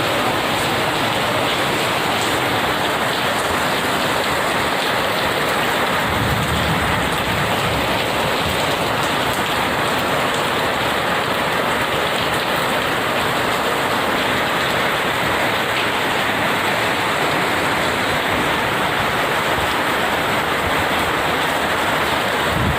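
Heavy rain pouring down steadily in strong wind, with a gust rumbling on the microphone about six to eight seconds in.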